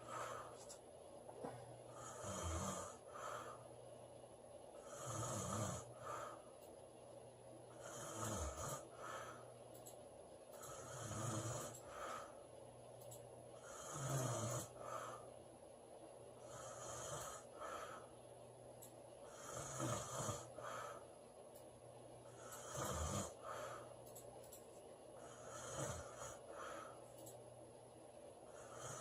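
A woman snoring in a steady rhythm, about one snoring breath every three seconds.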